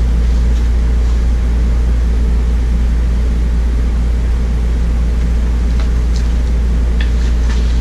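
Steady low mechanical hum, with a few faint paper rustles from a picture book's pages being handled about six and seven seconds in.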